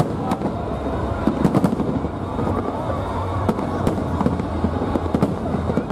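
Aerial fireworks shells bursting in an irregular series of sharp bangs and crackles over a steady background rumble.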